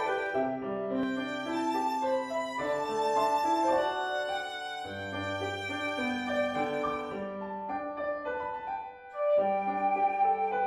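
A trio of flute, violin and piano playing an instrumental chamber arrangement together. The playing dips briefly just before nine seconds in, then comes back louder.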